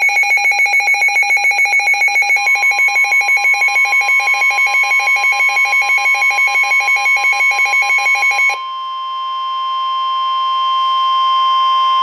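Weather alert radio sounding a severe thunderstorm warning: a rapid pulsing alarm beep, about six pulses a second, over a steady warning tone that comes in about two seconds in. The beeping stops about eight and a half seconds in and the steady tone carries on alone.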